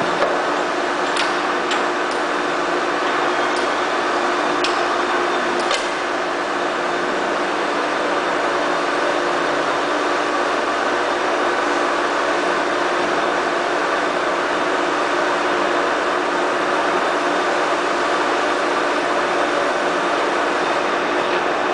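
FAT 630 straight-bed lathe running under power: a steady hum with several steady tones from the motor and gearing, and a few light clicks in the first several seconds.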